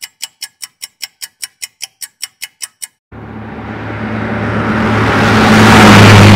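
Clock-like ticking, about five sharp ticks a second, stops about three seconds in. A rushing swell over a steady low hum follows and builds to a peak near the end.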